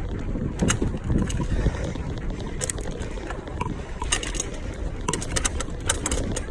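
Wind buffeting the microphone and the low rumble of a bicycle rolling along a street, with scattered sharp clicks and rattles.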